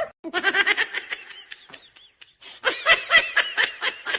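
High-pitched giggling laughter in quick short pulses: a first run, a brief lull, then a louder, faster run of about four pulses a second from about two and a half seconds in.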